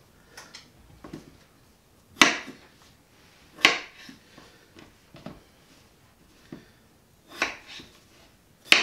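Kitchen knife cutting peeled potatoes on a cutting board: sharp knocks of the blade hitting the board, the loudest about two seconds in, near four seconds, and twice near the end, with fainter taps between.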